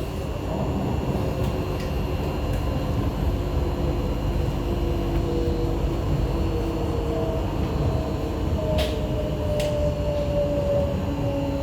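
C151A metro train running, with a steady rumble and a whine of several tones that slowly falls in pitch. Two sharp clicks come about three-quarters of the way through.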